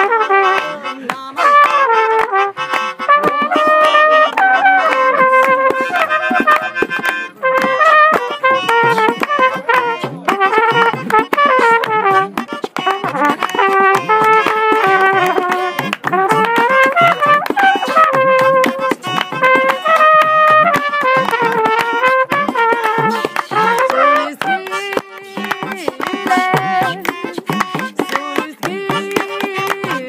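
Trumpet playing a wandering improvised melody over hand drums and clapping in an informal jam session.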